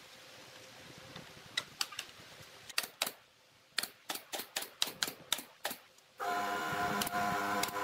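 Pneumatic brad nailer firing nails into a pine board: a few separate sharp shots, then a quick run of about seven shots, each a dry click. A louder steady hum of several pitches comes in suddenly about six seconds in.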